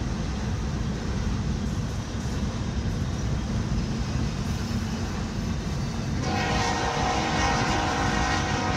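Steady road and engine rumble inside a moving car. About six seconds in, a locomotive horn starts blowing a held, multi-note chord.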